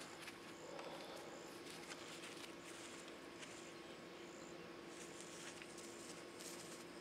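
Near quiet: faint, high insect-like chirps repeating about once a second over a low steady hum.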